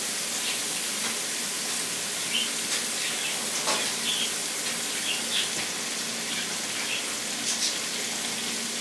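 Food sizzling steadily on a gas stove, with scattered small crackles and pops, over a faint low steady hum.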